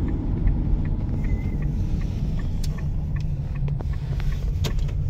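Steady low rumble of a moving car, engine and road noise heard from inside the cabin, with a few faint clicks.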